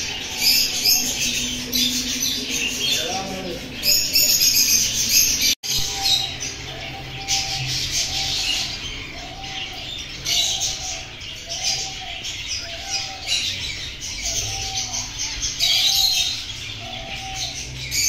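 A brood of young cockatiel chicks chirping and calling continuously in high, scratchy peeps, louder in spells. Through the second half, a short lower note repeats about once a second beneath the chirping.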